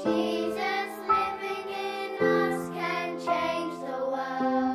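Slow, gentle children's song: voices singing over held chords, which change about two seconds in and again near the end.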